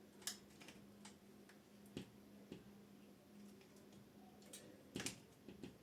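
Faint, scattered clicks and light taps of small parts being handled and fitted during hand assembly of a bike cable connector, with the loudest clicks near the start, about two seconds in and about five seconds in, over a faint steady hum.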